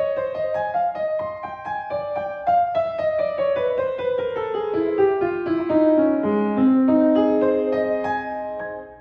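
Grand piano played solo, a mazurka: a busy line of notes steps downward through the middle of the keyboard, settles on lower held notes, then dies away at the end.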